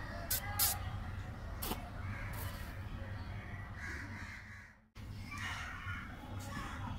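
Harsh animal calls repeated every second or so over a steady low rumble, with a few sharp clicks in the first two seconds. The sound drops out briefly near five seconds, then the calls go on.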